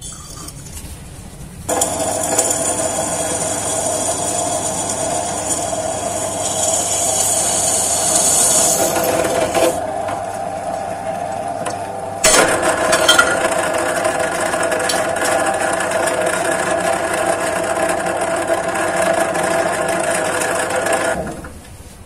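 Bench drill press running, its twist bit cutting into a hollow metal bar. The cutting noise starts about two seconds in, lightens briefly about ten seconds in, comes back strongly, and stops about a second before the end.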